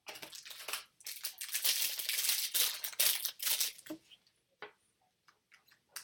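Crinkling and rustling of plastic trading-card packaging as cards are handled, lasting about four seconds and followed by a few light clicks.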